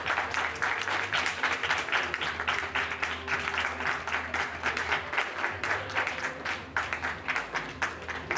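Audience applauding: dense clapping that thins out to scattered claps near the end.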